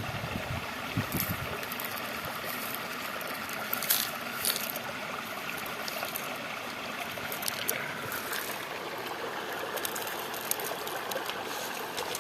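Steady rush of water flowing at a waterfall stream, with a few sharp clicks about four seconds in.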